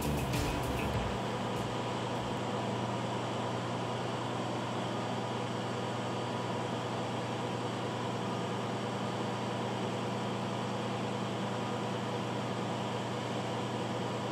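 Claas combine harvester running with a steady, unchanging hum while its Geringhoff folding corn head unfolds hydraulically.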